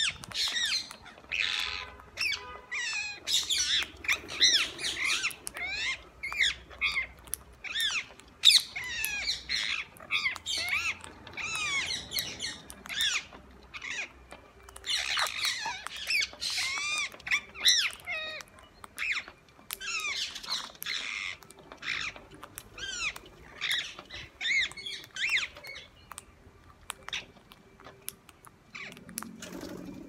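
A flock of rose-ringed parakeets calling: many short, high-pitched squawks, overlapping in quick succession, fewer and quieter near the end.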